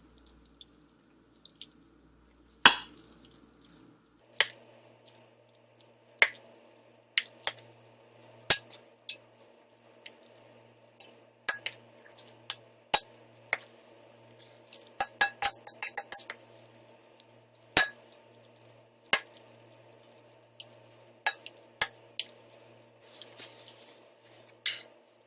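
Utensils clinking and clacking against a bowl as noodles are stirred in a spicy sauce: scattered single clinks, with a quick run of about eight in a second around the middle.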